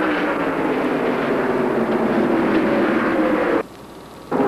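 V8 engines of NASCAR Modified stock cars running at racing speed, their note falling slowly. The sound cuts out for under a second near the end, then returns.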